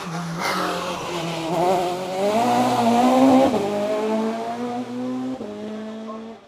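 Race car engine revving hard as it accelerates out of a hairpin. Its pitch climbs and then drops sharply at upshifts about three and a half and five and a half seconds in, with a short burst of noise about half a second in.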